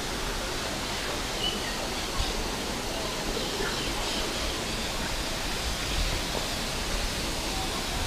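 Steady rushing of a tall waterfall plunging into a pool, with a couple of faint bird chirps about one and a half seconds in.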